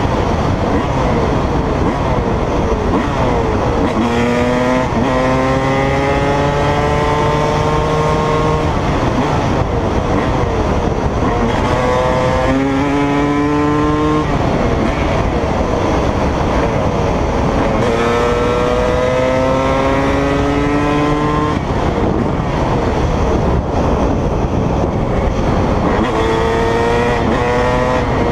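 Honda CR250 two-stroke dirt bike engine running hard through the gears, its pitch climbing steeply and dropping back at each upshift, about four times.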